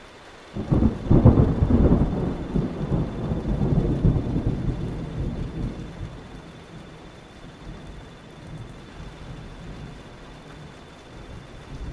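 A thunderclap breaks in about half a second in and rolls on as a long rumble, loudest in the first couple of seconds and then fading away over several seconds, over steady rain.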